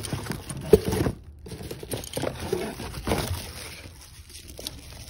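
Cardboard packing and bubble wrap rustling and crinkling as they are handled, with irregular crackles and a sharp crackle under a second in. It breaks off for a moment just after a second in, then the rustling is quieter toward the end.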